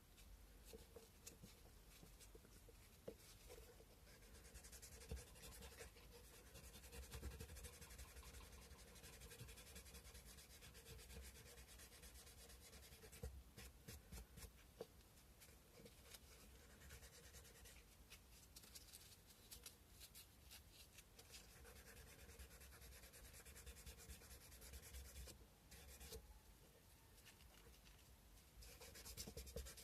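Sandpaper rubbed by hand over a carved cow-bone fish hook: faint, continuous scratchy strokes of paper on bone.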